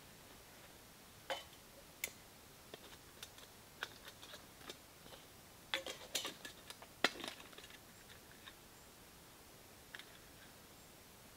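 Light clinks, taps and rattles of small titanium cooking pots and gear being handled and gathered up, with a brief burst of clattering just past the middle.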